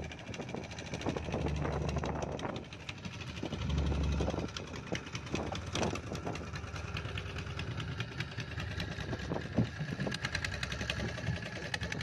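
A fishing boat's engine running with a rapid, even knocking beat, with a few sharper knocks in between.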